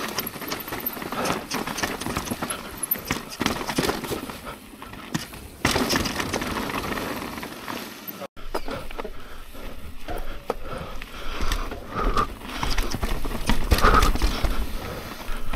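Mountain bike ridden over a dirt trail: tyres on dirt and the bike rattling and clattering over bumps in an irregular knocking run, with a momentary break about eight seconds in.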